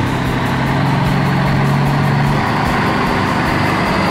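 Truck engine sound effect running steadily as a vehicle drives.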